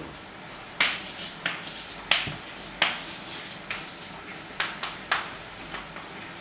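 A string of about ten sharp, irregular taps and short scratchy strokes over six seconds, the loudest about two seconds in.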